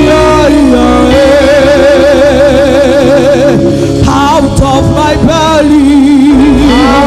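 Spontaneous worship music: a singer holding long notes with vibrato over steady sustained chords.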